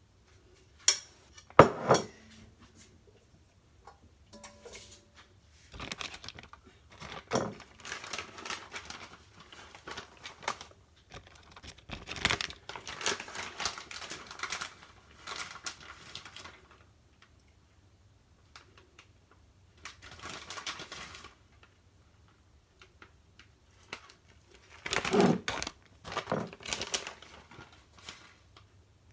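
Two sharp knocks of a utensil against a glass baking dish about a second in, then repeated bursts of crinkling and rustling as shredded cheese is scattered by hand over the lasagna.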